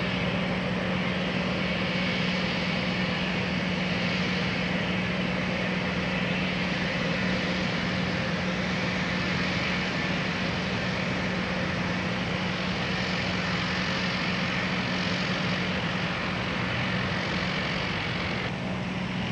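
Floatplane engine running with a steady, unbroken drone; the sound changes abruptly near the end.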